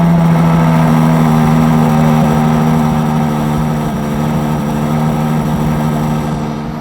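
Car engine idling with a steady, even drone, easing slightly in loudness toward the end.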